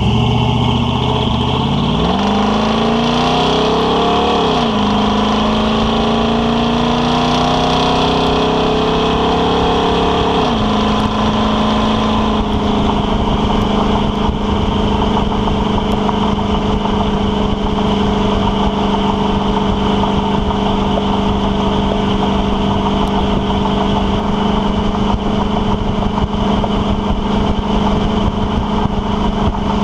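A 1976 Ford F350's 460 big-block V8 running through Hedman headers, dual 2-1/2-inch pipes and Thrush Welded mufflers, pulling away and accelerating. The exhaust note rises, drops at two upshifts about 4.5 and 10.5 seconds in, then holds a steady drone at cruise, with tyre and road noise.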